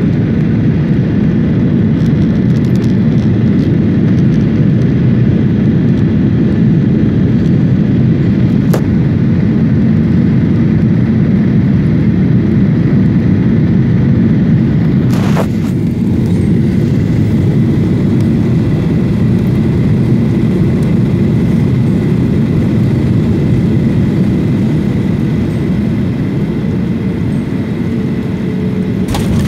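Cabin noise inside a Boeing 737 jet airliner on final approach: a steady deep rumble of engines and airflow. There is a faint click about a third of the way in and a sharper knock about halfway through.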